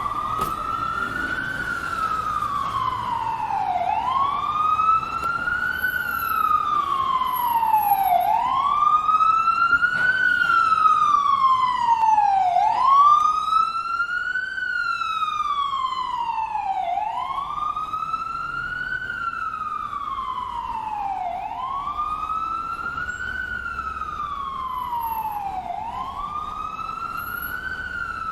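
Ambulance siren sounding a slow wail: the pitch climbs over about two seconds, then slides back down over about two seconds, repeating roughly every four seconds. It grows louder toward the middle and eases off again near the end.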